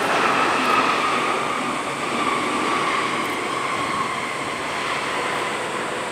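Jet airliner passing: a steady engine rush with a whine that slowly falls in pitch as it goes by.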